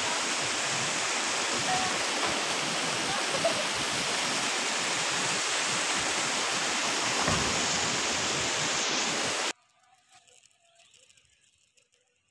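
Steady rush of flowing river water, cutting off abruptly about nine seconds in, after which there is near silence.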